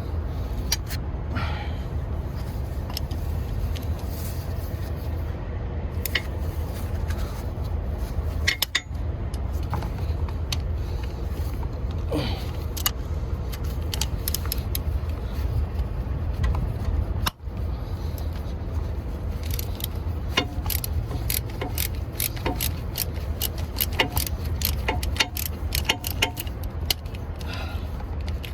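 Hand tools clinking on metal as the starter's mounting bolts are worked with a socket. Scattered clicks become quick runs of ratcheting clicks in the second half, over a steady low rumble.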